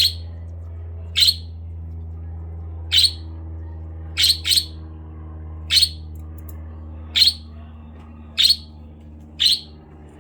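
Pet budgerigar giving short, sharp single chirps, about nine of them roughly a second apart, over a steady low hum.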